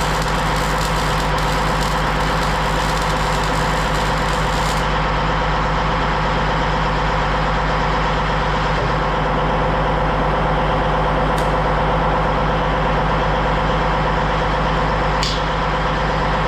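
A machine runs steadily with a constant, even hum. A hiss in the upper range stops about five seconds in.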